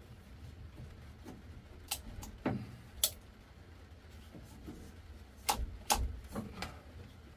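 Scattered clicks and knocks of a ratchet tie-down strap and its metal buckle being threaded and looped around two boat batteries in their battery box, in two clusters: one two to three seconds in, a second around five and a half to six and a half seconds.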